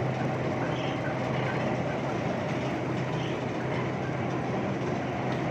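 Cottonseed oil mill machinery running steadily, with belt conveyors carrying cottonseed cake: a constant low hum under a dense, even mechanical noise.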